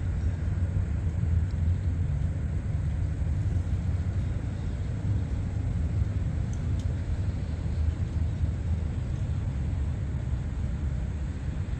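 Outdoor background: a steady low rumble with no distinct events, and a couple of faint high ticks about six and a half seconds in.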